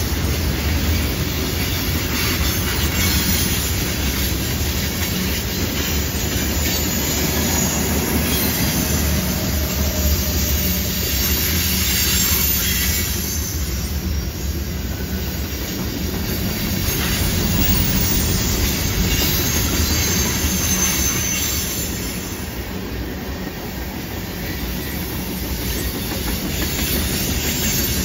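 Freight train of covered hoppers and tank cars rolling past on a curve: a steady rumble of steel wheels on the rails, with wheel squeal from the curve coming and going.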